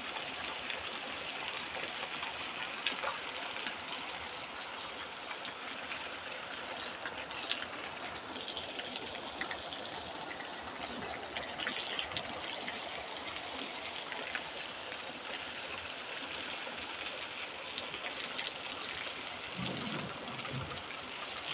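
Heavy rain pouring steadily, a dense even hiss with scattered drops ticking on nearby surfaces.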